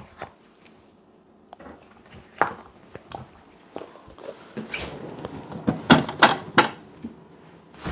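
Kitchen handling noises: scattered knocks and clicks as things are moved and set down, with a cluster of sharper knocks about six seconds in.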